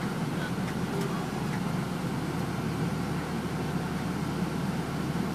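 Fire engine's diesel engine running steadily, a low even rumble heard from inside the cab.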